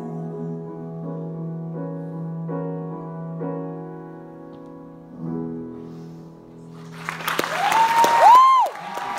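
Piano playing the closing chords of a song: a few chords struck and left to ring over a low sustained note, fading away. About seven seconds in, the audience breaks into applause with loud whistling.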